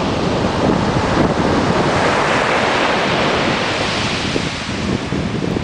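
Surf breaking and washing up a beach of crushed seashells: a steady hiss that swells in the middle and eases near the end, with wind rumbling on the microphone.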